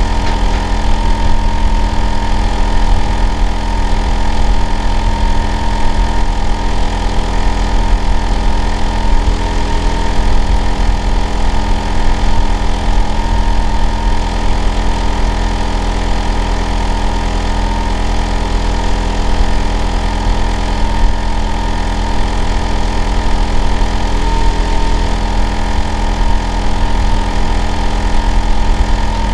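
Hitachi air-conditioner outdoor unit running: a loud, steady low hum with a constant whine on top, unchanging throughout. The neighbour calls it an abnormal noise.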